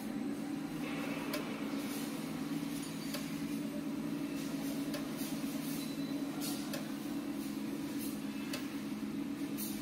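Drive motors and gearing of a double-column flipping welding positioner running as it slowly tilts its fixture frame: a steady hum with occasional light ticks.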